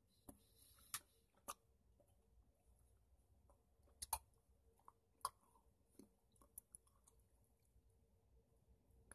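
Faint mouth sounds of a denture wearer chewing a piece of hard caramel: irregular sharp, wet clicks, a dozen or so, with near silence between them.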